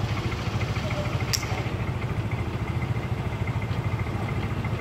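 Motorbike engine idling steadily with a fast even pulse, and one short click about a second and a half in.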